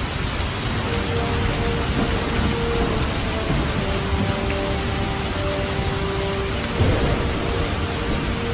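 Rain-and-thunder sound effect: a steady hiss of rain with low rumbling, under a few faint held tones. It swells briefly about seven seconds in.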